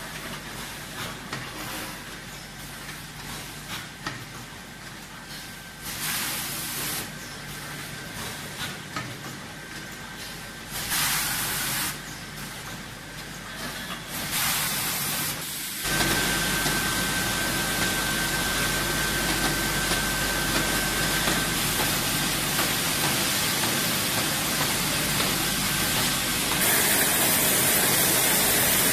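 PET bottle stretch blow molding machine running, with loud hisses of compressed air every few seconds. About halfway through it gives way to the steady, louder spraying hiss of a rotary bottle rinser's water jets, which grows louder near the end.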